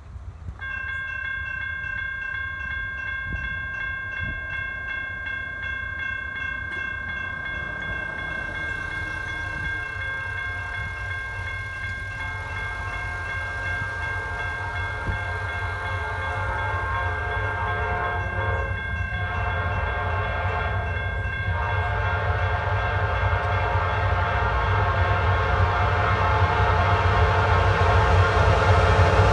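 General Signals electronic crossing bells start ringing about half a second in and keep ringing. From about the middle, an approaching train's horn sounds in several blasts over a low rumble that grows steadily louder as the train nears.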